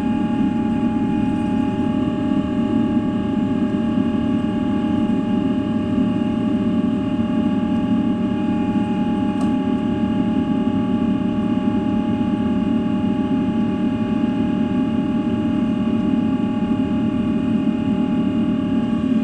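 Boeing 777-300 jet engines running steadily, heard inside the passenger cabin as a loud, even rumble with several steady whining tones over it. A faint click comes about halfway through.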